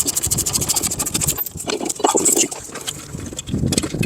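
Ratchet wrench clicking rapidly as a brake caliper bracket bolt is spun out, for about the first second and a half, followed by scattered metal clinks and handling noise.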